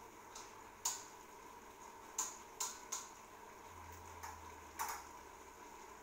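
A cooking utensil clinking and tapping against a wok while stirring a simmering coconut-milk stew of chayote and chicken: about seven sharp, irregular clicks, the loudest about a second in, over a faint steady simmer.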